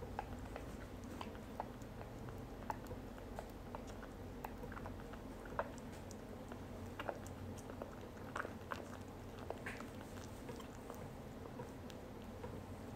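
A young kitten suckling milk from a feeding bottle's nipple: faint, irregular small wet clicks and smacks of its mouth and tongue, a few each second.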